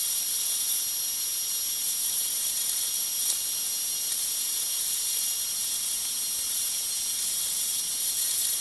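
Milling machine cutting a slot in a metal plate with an end mill, the sound sped up tenfold, which turns the cut into a steady high hiss with thin whining tones.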